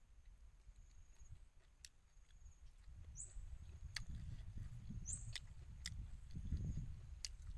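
Eating sounds: chewing and mouth smacks with scattered sharp clicks of chopsticks on a plate, over a low rumble of wind on the microphone that grows louder near the end.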